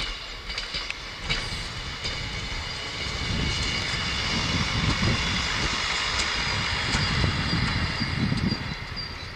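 Regionova diesel railcar passing close by: a low rumble from its engine and wheels builds, is loudest for several seconds mid-way, and eases off near the end, with a steady high whine above it throughout.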